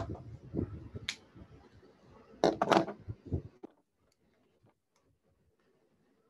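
Whiteboard marker handled and set down on the board's ledge: a few sharp clicks and knocks over the first three and a half seconds, the loudest cluster about two and a half seconds in, then near silence.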